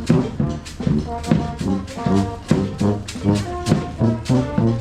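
Street band playing a tune on the move: brass horns holding pitched notes over a steady drum beat of about three strokes a second.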